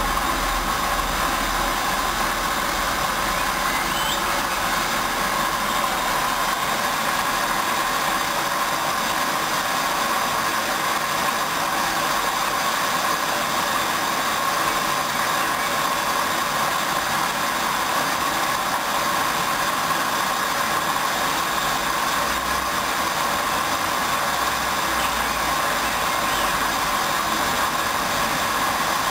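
Hoover Dynamic Wash 10+ front-loading washing machine running steadily through its mini-load programme: an even, unbroken motor and drum noise with a steady hum.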